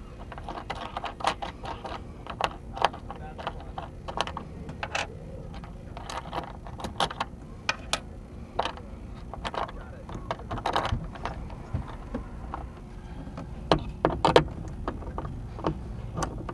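Irregular metallic clicks and clinks as ring terminals, nuts and a socket wrench are worked onto the studs of a bus bar, fastening a battery cable. A faint steady hum runs underneath.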